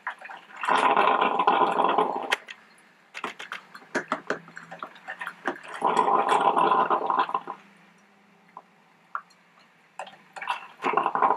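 Melitta Gevalia BCM-4C drip coffee maker gurgling mid-brew as its heater pushes hot water up to the brew basket, in three spurts about five seconds apart, with light clicks and ticks between them.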